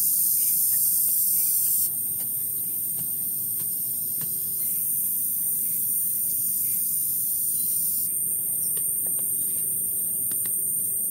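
A steady, high-pitched hiss of outdoor ambience, with faint scrapes and knocks of red soil being dug with a machete and tipped out of a woven bamboo basket.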